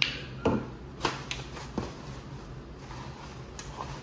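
Seafood-boil eating and handling sounds: a handful of short sharp clicks and wet squishes, bunched in the first two seconds with two more near the end, over a steady low hum.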